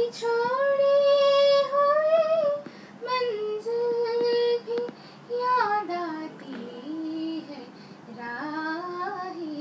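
A young woman's solo voice singing into a microphone without instruments, in long held phrases that glide up and down with short breaks between: a sung recitation of an Urdu poem.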